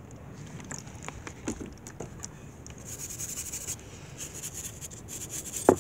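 Small handheld wire brush scrubbing loosened rust off a wet, vinegar-soaked steel axe head in short stretches of scratchy, hissing strokes. A few sharp knocks sound near the end.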